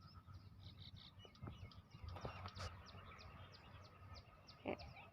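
Faint small-bird chirping: a run of short, high, quick chirps repeating several times a second, with a brief distant voice near the end.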